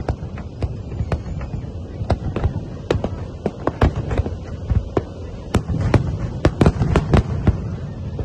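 Aerial fireworks display: an irregular string of sharp bangs from bursting shells over a continuous low rumble of further explosions. The bangs come thickest about two thirds of the way through.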